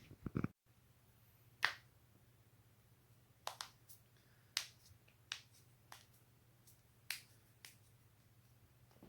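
Human joints cracking by self-manipulation: about a dozen short, sharp pops at irregular intervals, a few in quick clusters.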